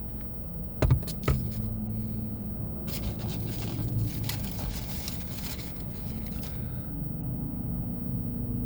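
Handling of a takeout order inside a car: two sharp knocks about a second in, then a few seconds of rustling packaging, over the steady low hum of the car.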